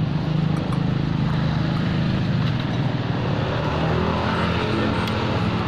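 A motor vehicle engine running steadily close by, a low, even hum that holds through the whole stretch.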